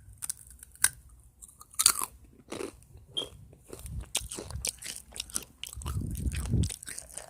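Close-up crunching and chewing of a crisp snack: a loud bite about two seconds in, then rapid, irregular crackling crunches, with heavier chewing near the end.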